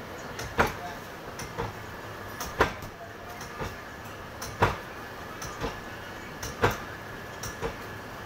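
Motor-driven paper plate making machine cycling steadily: a sharp clack every two seconds, four in all, with lighter clicks between and a faint steady whine underneath.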